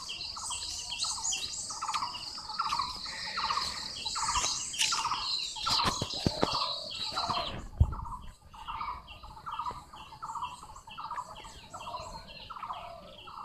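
An animal calling over and over: a short pulsed note about one and a half times a second, with a high steady shrill behind it that stops about halfway through. There is one louder thump near eight seconds in.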